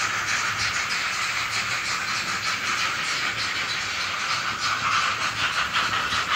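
N-gauge Arnold model of steam locomotive 41 001 running under digital control, its sound decoder playing a steady, hissing steam-exhaust chuff with a fast, even beat.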